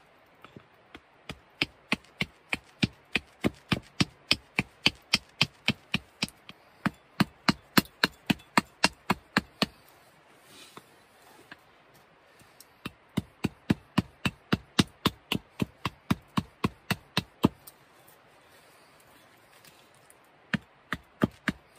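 Hatchet chopping a dry pear-wood branch held on a log chopping block, roughing out a carved fork blank: quick, sharp chops about three a second. There are two runs of chopping with a pause of a few seconds between them, then a few last chops near the end.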